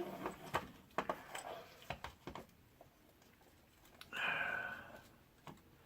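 Light clicks and taps of small drone parts and tools being handled, then a breathy rustle lasting about a second, about four seconds in.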